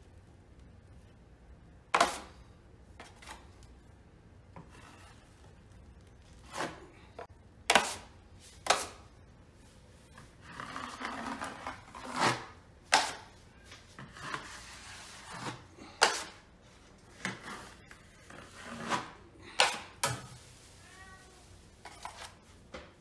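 A steel drywall taping knife clacking and scraping while joint compound is skim-coated onto a ceiling: sharp clacks every second or two, with a stretch of scraping about ten seconds in. A cat meows faintly near the end.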